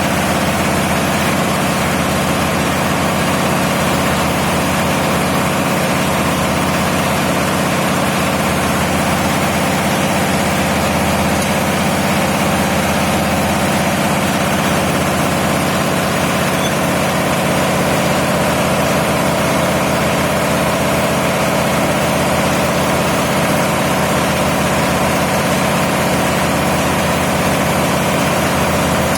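Diesel engine running steadily at a constant speed: a loud, unchanging drone with a steady hum.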